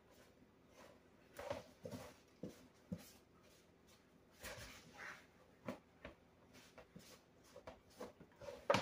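A wooden spoon stirring pizza crust dough in a large plastic mixing bowl, in faint, irregular scraping and slapping strokes as the dough is worked into a ball.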